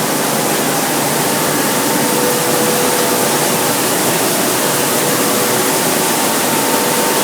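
Rice milling plant running, hulling and polishing the grain: a loud, steady, even noise with a faint steady hum.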